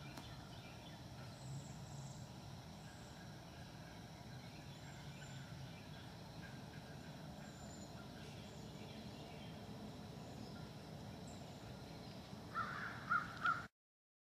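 Three short, loud animal calls near the end, over a faint outdoor background with faint high bird chirps; the sound cuts off suddenly just afterwards.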